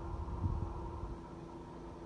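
Steady faint hum with a soft low thump about half a second in.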